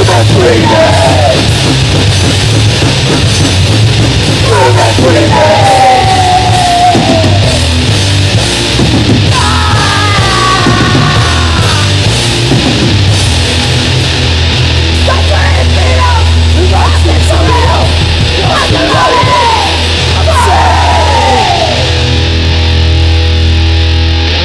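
Crust punk band playing at full volume: distorted guitars, distorted bass and drums, with harsh screamed vocals over them.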